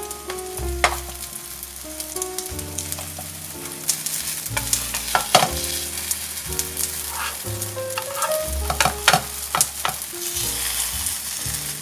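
Red-bean-filled rice cakes sizzling as they pan-fry in oil in a nonstick frying pan, with a metal spatula clicking and scraping against the pan again and again as the cakes are moved and turned.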